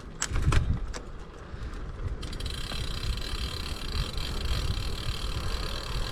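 Steady rushing road and wind noise, with low buffeting in the first second and a higher hiss setting in about two seconds in.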